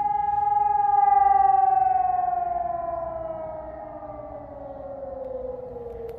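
Electronic civil-defence siren (Helin Sonus HES 600) sounding a loud steady tone that, after about a second and a half, glides steadily downward in pitch and fades as it falls.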